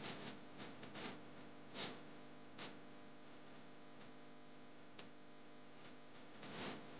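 Faint steady hum with short ticks and knocks scattered through it, several in the first three seconds, one about five seconds in and a couple more near the end.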